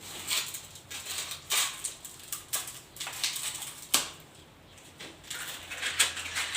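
Sandpaper being handled, crinkling and rustling, with irregular sharp clicks.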